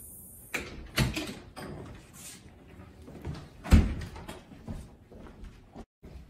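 A house's front door is shut with one loud thump a little under four seconds in, with lighter knocks before it and a few clicks of the knob and latch after.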